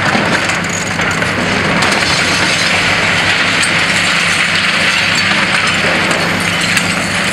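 High-reach demolition excavator at work on a concrete-framed building: its diesel engine runs steadily under a continuous rushing noise of crushing concrete and falling debris, with small clinks of breaking glass now and then.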